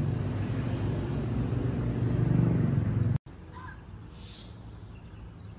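A steady low engine-like hum, cut off abruptly about three seconds in. After that comes quieter outdoor ambience with a few faint bird calls.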